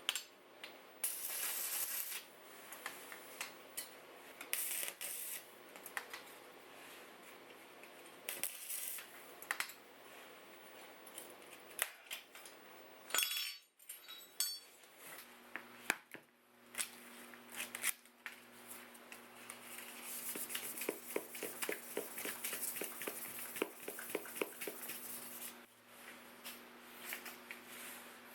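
Metal hand tools clinking and scraping on a workbench in scattered knocks and rasps. From about halfway a steady low hum comes in, and later there is a run of quick, regular strokes, several a second.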